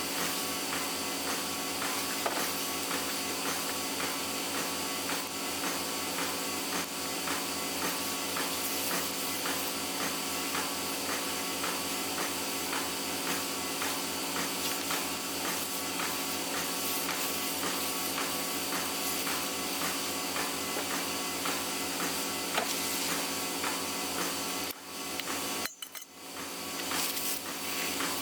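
A machine running steadily with a fast, even pulsing beat. It briefly drops away near the end, then picks up again.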